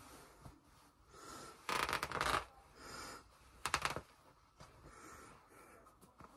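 Hoodie fabric being ripped: a crackling tear of under a second about two seconds in, and a shorter one a couple of seconds later.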